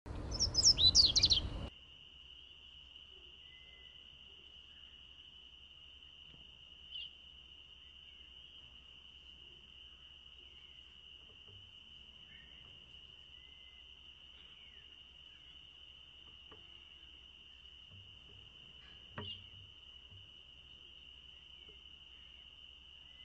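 A seedeater (coleiro) sings a short loud burst of song at the start. It then gives way to a steady, high, insect-like trill, with two brief chirps, one about a third of the way in and one near the end.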